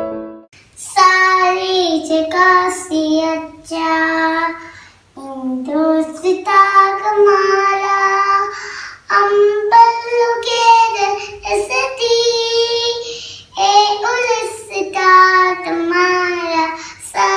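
A young boy singing alone without accompaniment, in phrases broken by short pauses.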